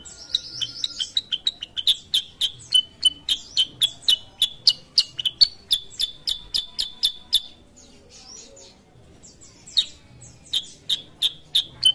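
Caged black-headed bulbul (kutilang sutra) calling vigorously in a fast run of short, sharp chirps, about three to four a second. It breaks off for about two seconds past the middle, then starts again.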